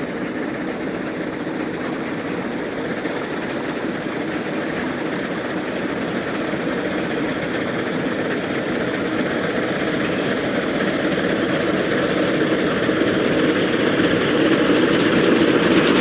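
C2-class narrow-gauge 0-8-0 steam locomotive hauling a coach, running along the track and growing steadily louder as it approaches and passes.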